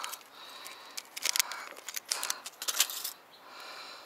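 A small fishing-hook packet being handled as a hook is pulled from it: a flurry of crackly rustling and small sharp clicks for about two seconds in the middle, with quieter fumbling either side.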